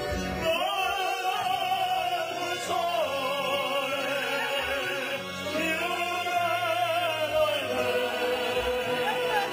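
Operatic singing into a microphone: long held notes with wide vibrato, over a steady instrumental accompaniment.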